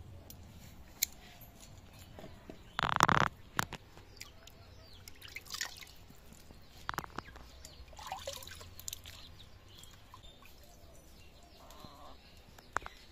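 Water splashing and dripping as pieces of hilsa (ilish) fish are rinsed by hand in a plastic bucket and basin. There is one loud splash about three seconds in, and shorter splashes follow now and then.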